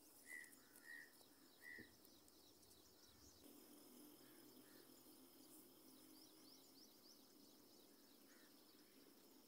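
Near silence: faint outdoor ambience, with three short high chirps in the first two seconds and faint high chirping later on.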